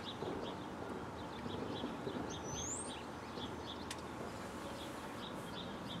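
Small birds chirping in short, repeated notes over steady low outdoor background noise, with one rising whistle about two seconds in and a single sharp click a little later. The siren is silent.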